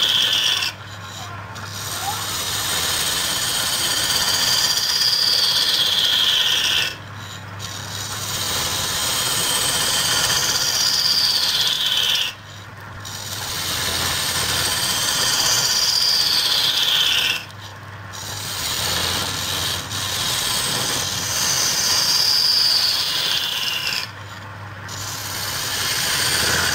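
Wood lathe with a hand-held turning chisel cutting into the end of a spinning wooden block: a loud, rough scraping of steel on wood. Each pass builds up, carries a high squeal that falls in pitch, and breaks off sharply, five times about every five to six seconds.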